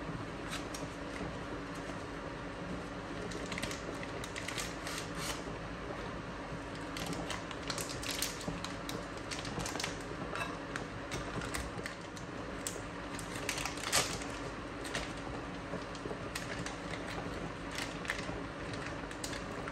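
Cardboard cheese box and its foil wrapper being opened and handled: scattered crinkles and sharp clicks in clusters, the loudest about 14 seconds in, over the steady hum of an induction cooktop.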